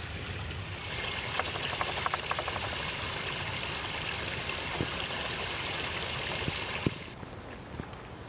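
Small forest creek flowing, with water spilling over a log into a pool: a steady splashing hiss that grows louder about a second in and drops away suddenly about seven seconds in.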